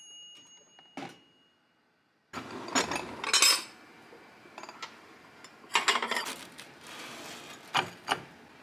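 Ceramic plates clattering and clinking against each other as one is taken out of a kitchen drawer, in two bursts a few seconds apart, with two sharp knocks near the end. At the start, the fading ring of a toaster oven's timer bell, then a click about a second in.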